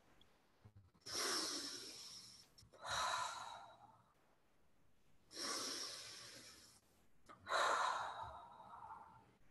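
A person breathing deeply and audibly in a slow breathing exercise: four long breaths about two seconds apart, each starting sharply and fading away.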